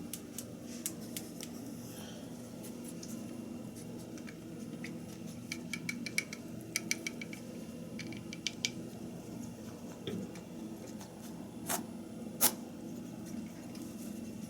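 A rabbit licking and lapping up liquid medicine: quick wet tongue clicks in short runs through the middle, with two louder clicks near the end.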